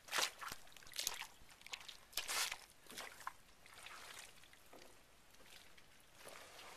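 Wet squelching and sucking in thick mud as a fiberglass pontoon is shoved and dragged through it, with footsteps in the muck: several short squishes in the first half, quieter after about four seconds.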